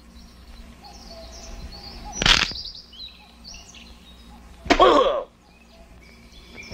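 Cartoon soundtrack of small birds chirping faintly over soft background music. There is a short, sharp sound effect about two seconds in, and a brief exclamation, "O!", near the end.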